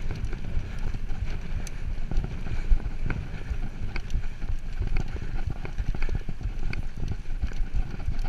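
Mountain bike rolling fast over a bumpy dirt trail: irregular clicks and knocks of the frame, chain and suspension rattling over the ground, over a steady low rumble of wind on the microphone.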